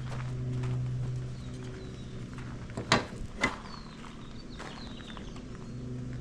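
Two sharp knocks about half a second apart over a steady low hum.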